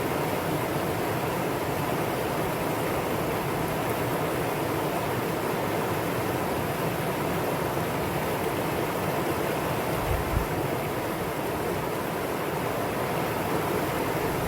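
Valley stream water rushing steadily over rocks, with a brief low thump about ten seconds in.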